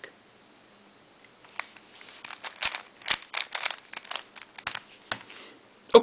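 Plastic 3x3 Rubik's Cube being handled and turned, its layers clicking in a quick irregular run of sharp clicks starting about a second and a half in.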